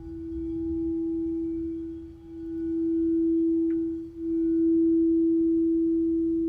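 Crystal singing bowl ringing on one sustained pure note that swells and fades, dipping briefly twice.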